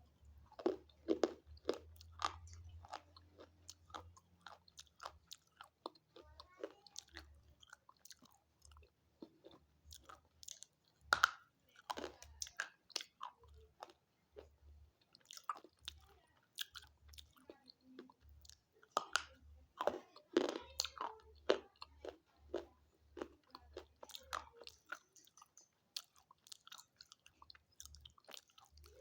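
Close-up biting and chewing of brittle, chalky slate-pencil sticks: irregular sharp crunches and crackles, with the loudest bites about a second in, around a third of the way through, and again past two-thirds.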